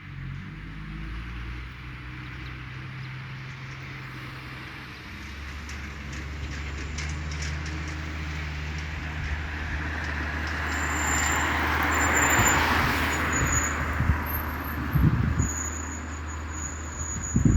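Road traffic: a motor vehicle engine hums steadily, and a vehicle passes close, loudest about twelve seconds in, followed by a few knocks near the end.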